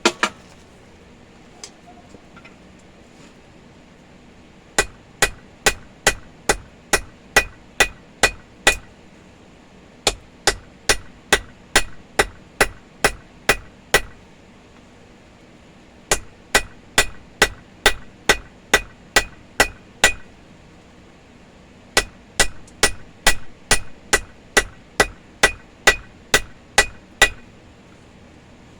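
Hand hammer striking hot steel on an anvil in four steady runs of about two blows a second, with short pauses between runs, each blow ringing briefly. This is the forging of one end of a chipping hammer toward a center punch.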